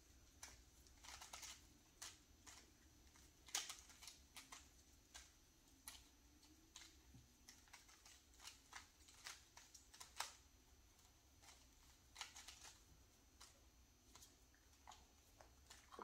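Plastic Rubik's cubes being turned fast by hand: faint, irregular clicking of the layers snapping round, sometimes in quick runs of several turns.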